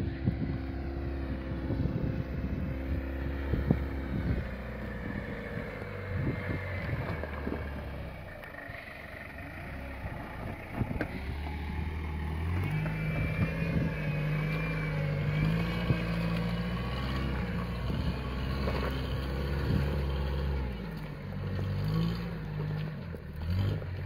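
Toyota Hilux Mk3 pickup's engine running at low revs while crawling off-road, its pitch stepping up and down a few times with the throttle. Scattered knocks in the first few seconds.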